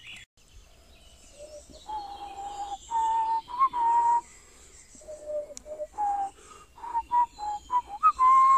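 A person whistling a slow tune close by: a string of held notes stepping up and down in pitch, each with some breath noise, ending on a long held note.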